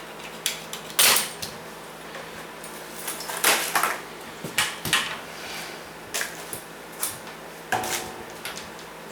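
Irregular clicks, knocks and rattles of a For Living folding clothes drying rack being handled, about ten separate sharp knocks with the loudest about a second in and again near the middle.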